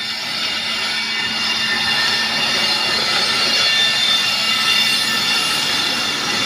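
Indian Railways double-decker train running on the track, a steady rushing clatter that builds over the first couple of seconds and then holds.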